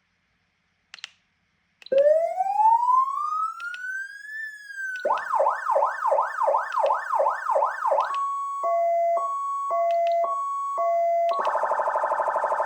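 Premier Hazard 9004 electronic siren stepping through its tones after a switch click: a slow rising wail sweep, then a fast yelp of about three sweeps a second, then a two-tone hi-lo alternating about every half second, and near the end a rapid pulsing tone.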